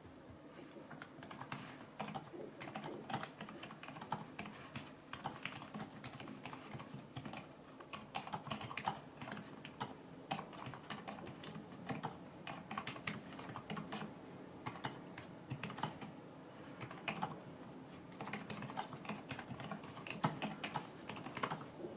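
Continuous typing on the SABLUTE KN213PRO wireless keyboard's low-profile membrane keys: a rapid, irregular run of soft key clicks, very quiet.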